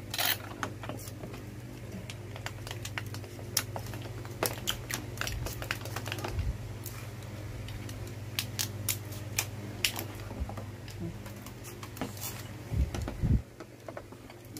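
Hard plastic toy-robot parts and remote controllers being handled and fitted together: a scatter of sharp clicks and clacks, with a few duller knocks near the end, over a steady low hum.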